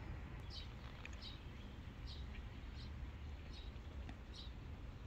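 A small bird chirping repeatedly in the yard: short, high, faint chirps about once a second over a low steady outdoor rumble.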